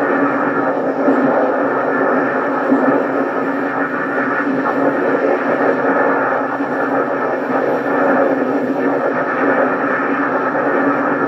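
Replica Ghostbusters proton pack's electronics playing a powered-up sound effect through the pack's speaker: a steady rumbling drone with a low hum tone under it.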